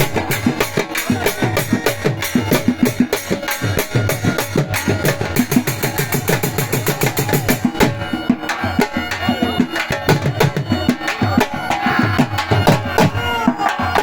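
Background music with a fast, steady drum beat.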